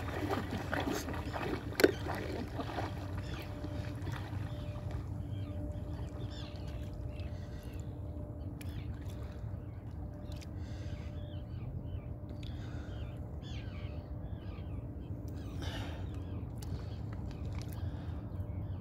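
Shallow sea water splashing as a man wades out, with one sharp knock about two seconds in. After that comes a steady low rumble with a faint hum, and scattered faint bird chirps.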